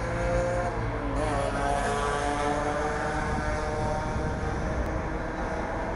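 Street traffic: a motor vehicle's engine running steadily, its pitch drifting slowly, over a low rumble of city noise.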